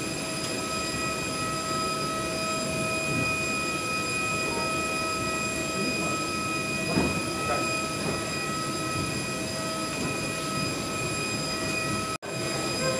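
Steady vehicle-interior rumble with a constant high whine, broken off by an abrupt cut near the end.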